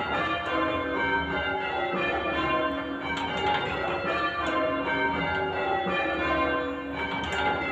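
Church tower bells rung full circle in change ringing, several bells striking one after another in a continuous sequence, their tones ringing on and overlapping.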